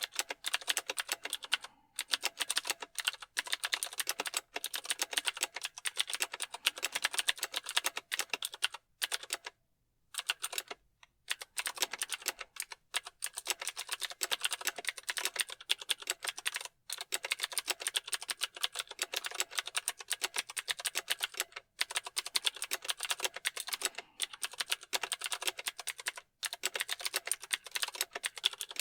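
Mechanical keyboard keys clicking in fast, continuous typing, with a few short pauses, the longest about ten seconds in.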